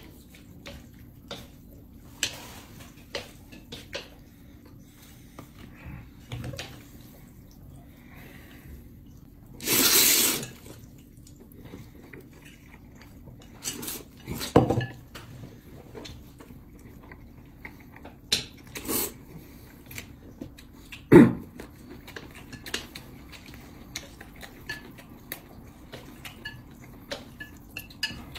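Chopsticks clicking against plates and bowls during a noodle meal, with a few loud slurps of noodles, the longest about a second, and one sharp knock of a dish about three quarters of the way through.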